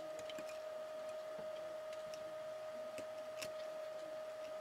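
Small screwdriver turning a Phillips screw out of a model locomotive's motor: a few faint scattered clicks, two sharper ones about three seconds in, over a steady hum.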